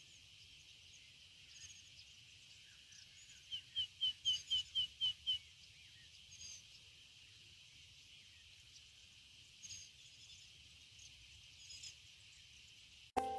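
A wild bird calling a quick run of about eight short, sharp notes, roughly four a second, a few seconds in. A few fainter chirps come at other moments, all over a steady high hiss.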